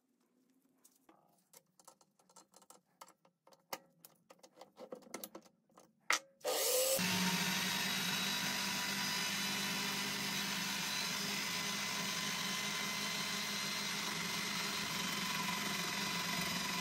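A power tool's motor switches on about six and a half seconds in and runs steadily at an even speed, after a run of light clicks and taps from parts being handled.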